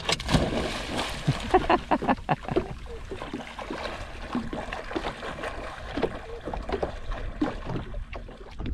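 A dog splashing as it bounds through ankle-deep water on a sandbar, an irregular run of splashes that is busiest in the first few seconds, with water lapping at a small boat's hull.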